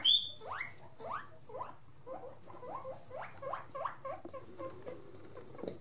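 Guinea pig squeaking: a steady run of short, rising squeaks, about three a second, with a brief high squeal at the start. Begging for food.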